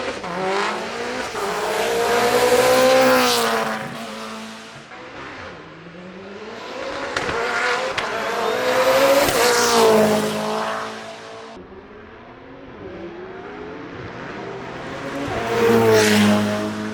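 Hillclimb race cars launching from the start one after another, each engine revving hard and climbing in pitch through the gears before fading up the hill. Three runs: loudest about three seconds in, again near the middle, and once more near the end.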